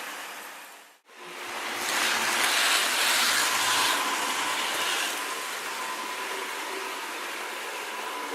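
OO gauge model train running on track: a steady rumble of motor and wheels with a thin steady whine. The sound drops out briefly about a second in, comes back louder for a few seconds as the train passes close, then settles.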